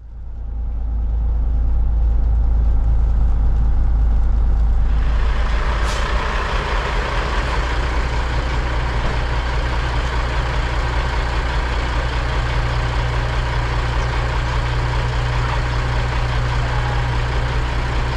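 Heavy truck engine running steadily with a deep rumble; about five seconds in a louder hissing noise joins and continues, with a single sharp click shortly after.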